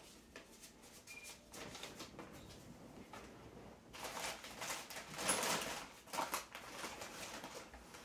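Tissue and wrapping paper rustling and crinkling as a gift is unwrapped. It is loudest about halfway through.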